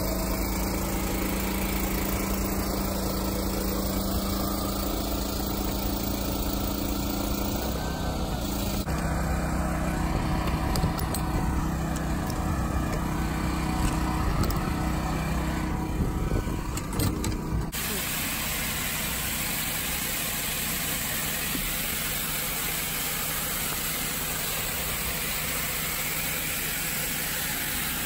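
Unverferth seed tender's conveyor and engine running steadily while soybean seed is loaded into a planter, with a steady engine hum that changes about nine seconds in. From about two-thirds of the way through there is an even rushing hiss of soybeans pouring off the conveyor into the planter hopper.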